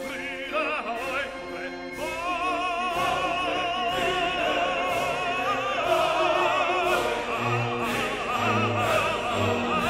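Background music: an operatic voice singing with wide vibrato over an orchestral accompaniment.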